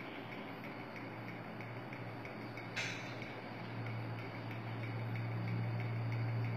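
Low steady electrical hum from an ultrasonic skin-scrubber facial machine in use, growing louder in the second half, with one short sharp hiss about three seconds in.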